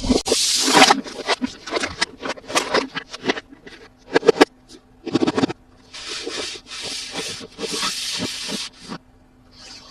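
Toy packaging being handled and opened by hand: plastic and cardboard rubbing and scraping, with many small clicks and taps. There is a scraping burst at the start and longer hissy scraping stretches about six to nine seconds in.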